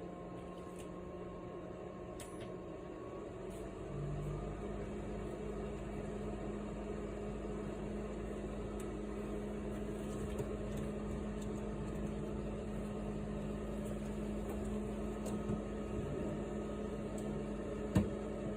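Steady hum of a pet drying box's fan heater running, getting louder about four seconds in, with a few light clicks and one sharper click near the end.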